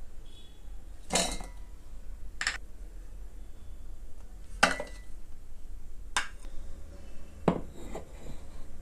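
A cooking utensil clinking against a pot five times, a second or two apart, each strike ringing briefly.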